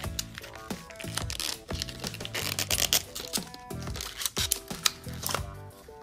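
Background music with a steady beat, over the crinkle and rustle of plastic packaging being handled and opened.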